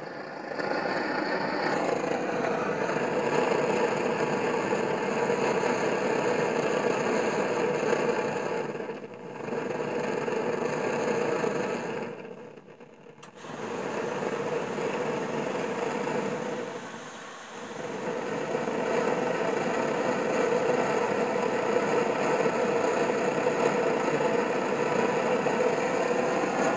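1954 Primus 862 pressurised brass blowlamp burning with a steady flame noise. The sound dips briefly three times, nearly dying away once about halfway through, then comes back to full strength.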